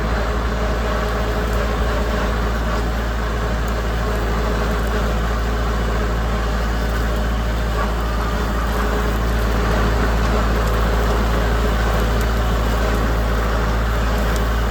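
Tractor engine running steadily at a constant speed while pulling a no-till drill.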